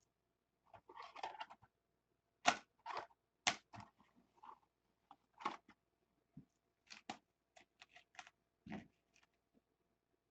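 Baseball cards being handled and put into plastic card holders: irregular clicks, taps and rustles, with a short crinkling rustle about a second in and a dull thump near the end.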